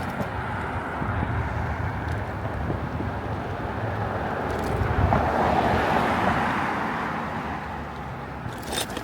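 Wind on the microphone and road noise while riding a small electric bike along a street, a steady rushing with a low rumble that swells louder about halfway through.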